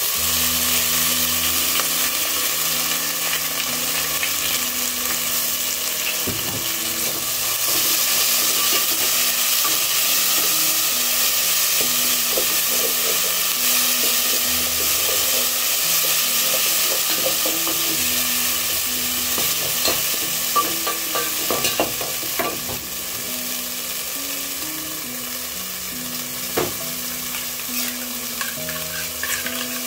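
Garlic and ginger paste sizzling in hot oil with fried onions in an aluminium pot, stirred with a wooden spoon that clicks and knocks against the pot. The sizzle eases a little about two-thirds of the way through.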